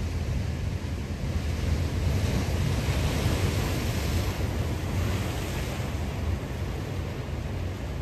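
Ocean surf: a steady deep rumble of waves, with one wave breaking and hissing that swells up about two seconds in and dies away about six seconds in.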